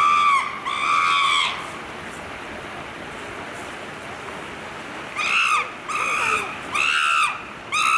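Chimpanzee screaming: a series of high, arched cries about half a second each, two at the start, then a pause of a few seconds, then four more in quick succession near the end.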